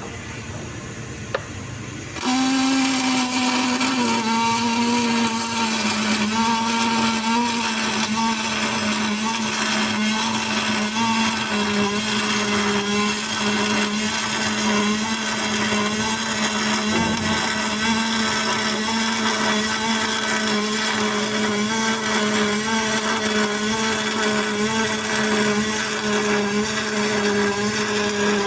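Aluminum MIG welding arc, struck about two seconds in and then running as a steady buzzing hum with a slight regular waver.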